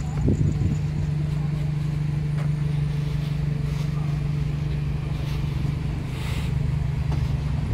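Engines of a queue of small convertible sports cars idling and creeping forward at walking pace, a steady low hum.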